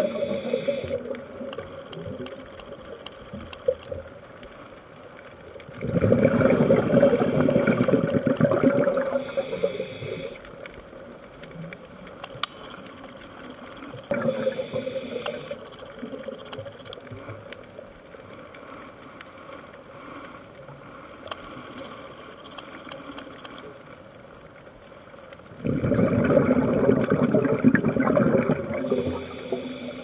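Scuba diver breathing through a regulator underwater: exhaled bubbles gurgle in long bursts about 6 seconds and 26 seconds in, with a shorter burst near 14 seconds, and short hisses of inhalation in between, over a quieter steady underwater background.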